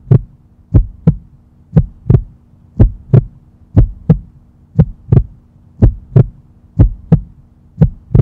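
Heartbeat sound effect: a double thump, lub-dub, about once a second, over a steady hum.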